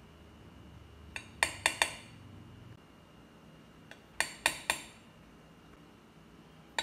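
Metal spoon clinking in three quick groups of three or four sharp, ringing taps, about a second in, midway and at the very end, as spoonfuls of sugar are added to a saucepan.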